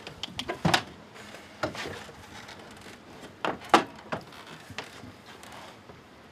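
A sow's hooves knocking on a ribbed metal loading ramp as she walks: a handful of irregular hard knocks, the loudest a little under four seconds in.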